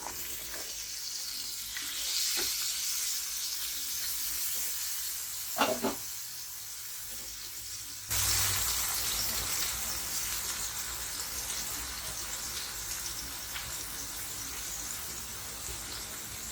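Food sizzling in hot oil in a pan, a steady hiss, with a short knock of a utensil about six seconds in. About eight seconds in the sizzling suddenly gets louder and fuller.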